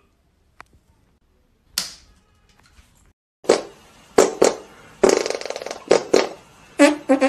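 Comic music laid over the clip: mostly quiet for about three seconds, then a run of short, loud blasts, leading into brass music near the end.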